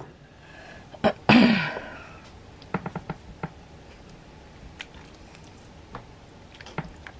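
A slotted spatula stirring thick chili in a slow-cooker crock: soft scraping with a few light clicks against the crock. About a second in there is a sharp knock followed by a short, louder noise.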